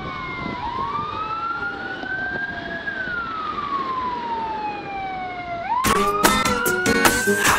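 Police car siren wailing, its pitch slowly rising and falling in long sweeps. Music with a drum beat comes in near the end.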